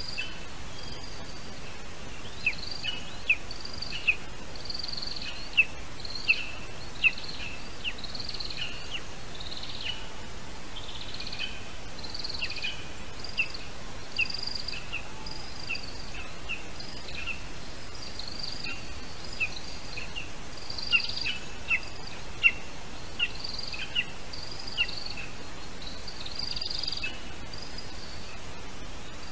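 Many short, high-pitched bird chirps, each dropping quickly in pitch, repeated irregularly over a steady background hiss.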